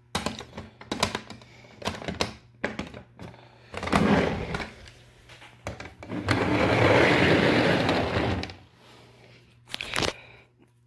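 Clear plastic model train display cases being handled: scattered clicks and knocks as the cases are picked up and set down, with a longer rustling, scraping stretch from about six to eight and a half seconds in.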